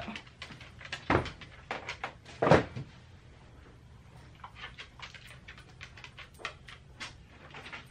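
Two knocks of footsteps on a hardwood floor, about one and two and a half seconds in, followed by faint quick clicking of a small dog's claws on the floor.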